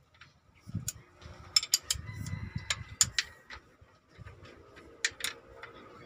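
Irregular metal clinks and knocks of a wrench against the diesel injection pipe fittings on a Hino F20C engine's cylinder head, with low handling rumbles between them.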